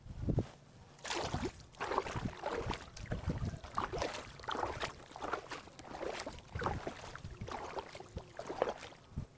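Kayak paddle strokes dipping and splashing in calm river water, a steady rhythm of about one and a half strokes a second.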